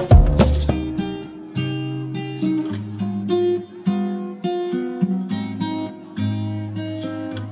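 Background music: acoustic guitar strumming chords in a steady rhythm, after a louder passage with sharp percussive strokes breaks off just under a second in.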